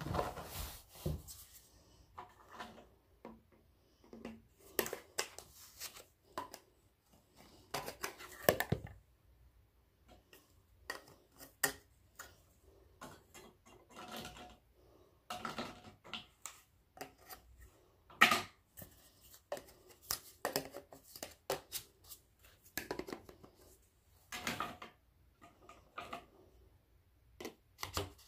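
Scattered faint clicks, taps and rustles at irregular intervals, with sharper knocks about eight and eighteen seconds in.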